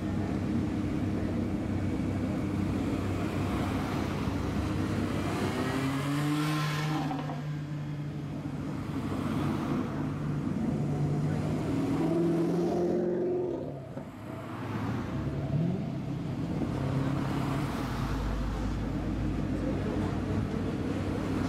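Cars driving slowly past one after another, engines running at low revs with throttle blips. The loudest is a Maserati GranTurismo's V8 revving up and pulling past about halfway through, and a deep low rumble follows near the end as the next car rolls by.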